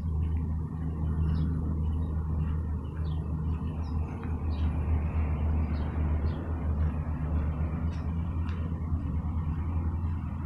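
An engine running steadily: a continuous low rumble, with faint short ticks scattered over it.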